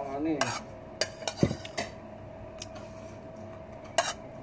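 A metal spoon clinking and scraping against a ceramic plate while eating. There is a run of sharp clinks in the first two seconds and one more near the end.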